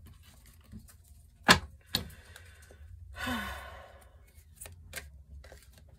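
Two sharp taps about half a second apart, then a person sighing with a short breathy exhale that falls away into the voice, with a few faint clicks.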